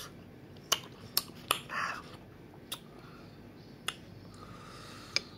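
Hand-squeezing small green limes over a metal spoon and a glass bowl: about six sharp clicks spread through, with a short rasping noise about two seconds in.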